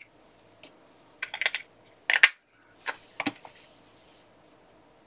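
Typing on a computer keyboard: a few short runs of key clicks between about one and three and a half seconds in.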